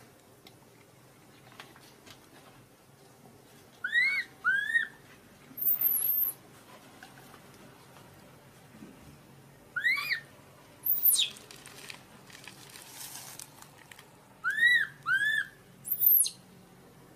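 Newborn macaque crying: about eight short, arched, high-pitched cries in three clusters, a few of them shrill rising squeals. These are the distress cries of an infant left without its mother.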